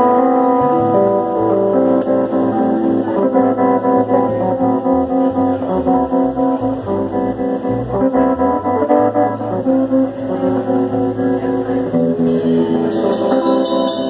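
Live band playing an instrumental during a sound check, electric guitars to the fore.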